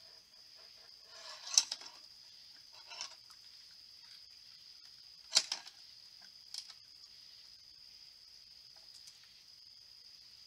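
Raccoon clambering on a metal bird-feeder pole and its hanging feeders, giving a handful of knocks and rattles, the loudest about five seconds in, over a steady high-pitched drone.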